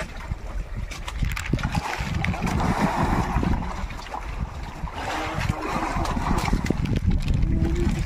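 Water rushing and splashing against a small fishing boat's hull at sea, over a low rumble, surging twice, about two and five seconds in.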